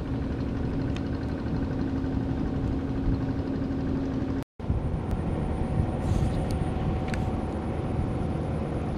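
Steady low outdoor rumble with a faint steady hum. It cuts out completely for a moment about halfway through.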